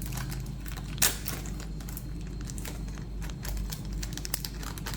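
Light crinkling and clicking from handling blind-box packaging and small vinyl figures, with one sharper click about a second in, over a steady low hum.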